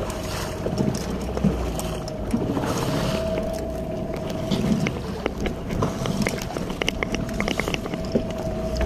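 Small fishing boat at sea with its motor running as a steady hum, wind on the microphone, and scattered knocks and clicks of gear on the boat.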